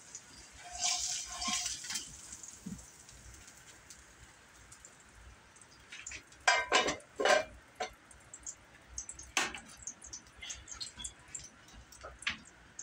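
A spatula scrapes eggs out of a frying pan about a second in. Then the pan clanks down on the electric stove, with a few more knocks and light clicks as the spatula is set on it.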